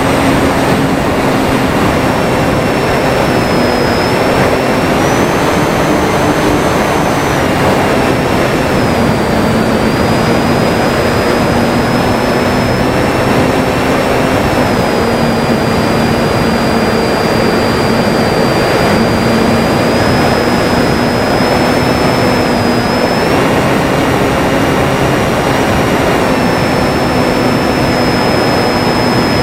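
Durafly Tundra RC plane's electric motor and propeller whining in flight, the pitch stepping up and down every few seconds as the throttle changes, over a loud, steady rushing noise.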